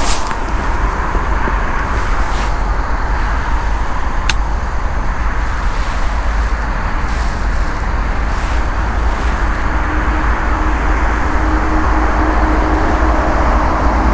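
Steady low rumble of a running vehicle, with a few short sharp clicks in the first few seconds.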